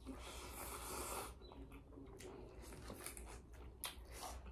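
Quiet sounds of eating by hand: soft chewing and mouth clicks with scattered light taps, over a low steady hum. A short hissing rush fills the first second or so.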